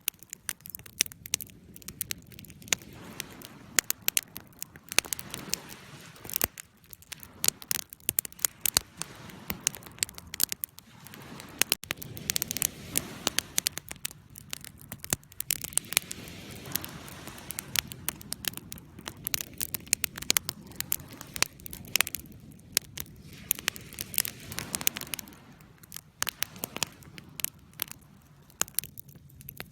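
Campfire burning: wood crackling and popping in many sharp, irregular snaps over the low rush of the flames.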